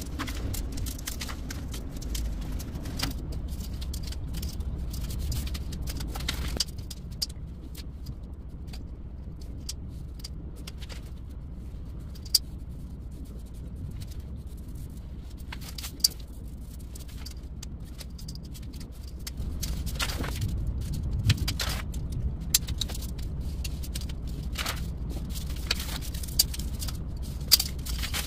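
Scattered scrapes, taps and rustles of large paper sheets being handled, taped, drawn on with a marker against a steel ruler and cut with a craft knife, over a steady low hum.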